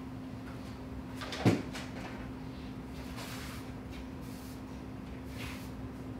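A single loud thump about a second and a half in, then a push broom sweeping a concrete floor in three short strokes about a second apart, over a steady low hum.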